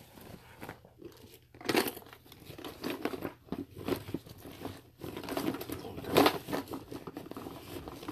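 A tackle hip pack being handled: irregular rustling and crinkling of its synthetic fabric, with louder rustles about two seconds in and again around six seconds.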